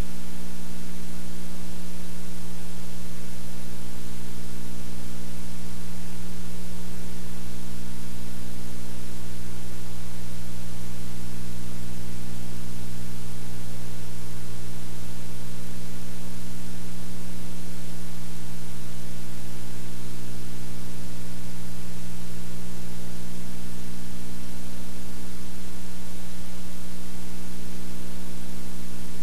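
Steady loud electrical hum with hiss: recording noise with no other sound in it.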